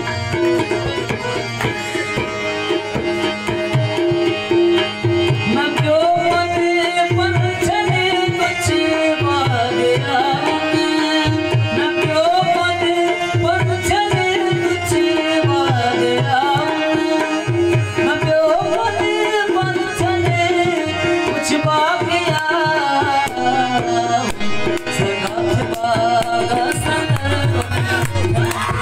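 Live South Asian folk music: harmonium and tabla playing, with a man singing over them from about six seconds in until near the end.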